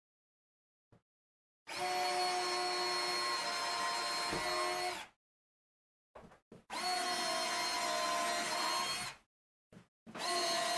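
Cordless drill running at a steady speed in three runs of two to three seconds each, with short pauses and a few light knocks between them.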